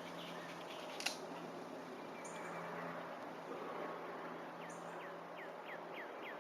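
Faint outdoor quiet: a bird chirping in short, repeated downward notes over a low steady hum, with one sharp click about a second in.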